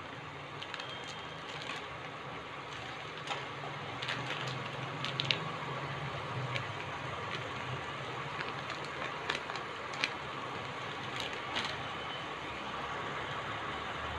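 Prawn masala curry simmering in a pan, its thick surface bubbling with small, irregular pops, over a steady low hum.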